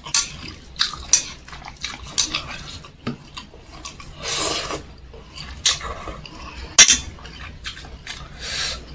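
Chopsticks and a wooden spoon clicking and knocking against a stainless steel bowl in a string of sharp taps, the loudest a little before seven seconds in. Noodles are slurped once, about four and a half seconds in.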